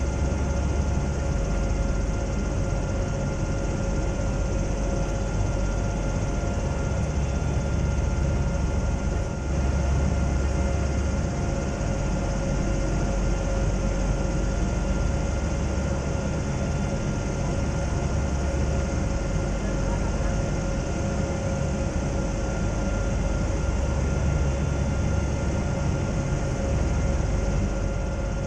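Zeppelin NT airship's engines and propellers droning steadily, heard inside the gondola. The drone is a steady low rumble with two steady tones above it.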